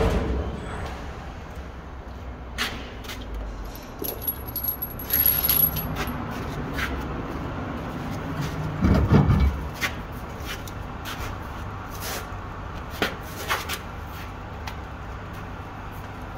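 Scattered metallic clinks and knocks from work on a truck's rear wheel hub, with a heavy low thud about nine seconds in as the wheel comes off the hub.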